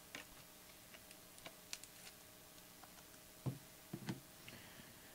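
Faint scattered clicks and taps of trading cards in rigid plastic top loaders being handled and set down on a cloth playmat, with a couple of duller knocks near the end.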